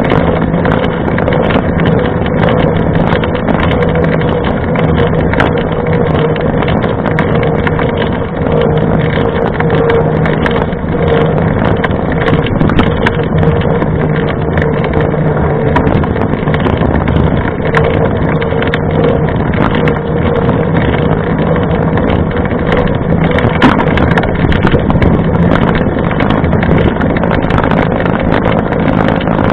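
Knobby mountain-bike tyre rolling fast on wet asphalt: a steady droning hum under a loud, even rushing noise.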